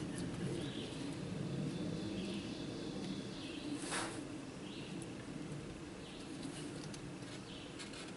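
Outdoor ambience: birds chirping every second or so over a steady low hum, with one sharp click about four seconds in.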